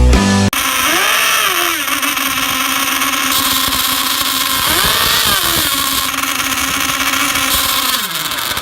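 High-revving engines of RC race boats running on the water: a steady, high buzzing note whose pitch rises and falls twice, then drops near the end.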